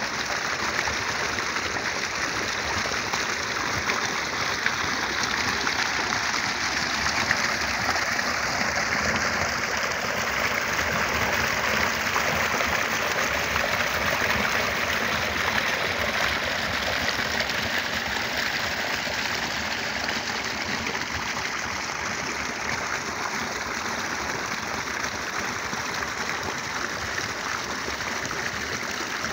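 Irrigation water rushing steadily, gushing out of a large pipe outlet into a concrete channel that feeds a pond.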